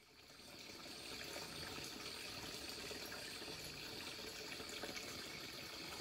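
Faint, steady trickle of flowing water from a shallow forest stream, fading in over the first second.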